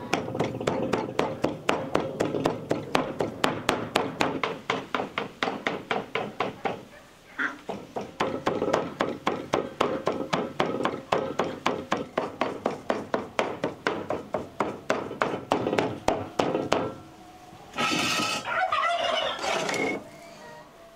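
A knife chopping on a wooden board in a steady run of knocks, about four a second, with a short break about seven seconds in. The chopping stops near the end and a brief rustling scrape follows.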